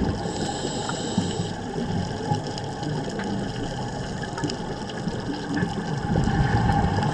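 Steady, muffled water noise as picked up underwater by an action camera during a scuba dive.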